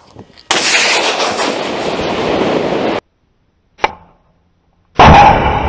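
Stugna-P anti-tank guided missile launches. A sudden blast is followed by the rushing of the missile's motor for about two and a half seconds, which cuts off suddenly. About five seconds in, a second loud launch blast comes and fades away.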